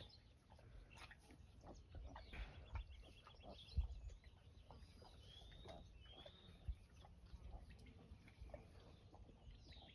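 Quiet farrowing pen: faint rustling and a few soft thumps as the sow settles in her bedding, with a couple of short, high chirp-like squeaks.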